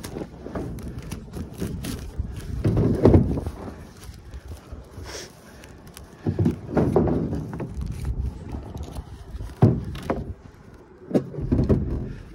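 Tarp being hung over barn pens: irregular rustling and scraping in uneven surges, with a sharp knock about ten seconds in.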